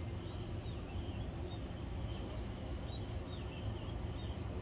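Birds chirping: many short, high calls, some sliding up and some down, scattered throughout over a steady low rumble.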